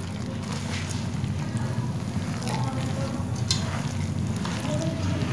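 A spatula stirring a crumbly mixture of grated coconut and crushed nuts in ghee in a pan, with a few light clicks against the pan over a steady low hum.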